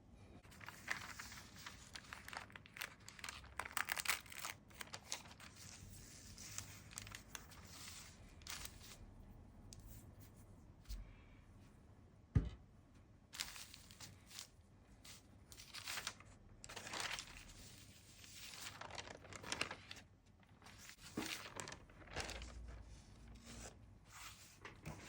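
Paper rustling and crinkling as it is handled, in irregular swishes, with a single sharp knock about halfway through.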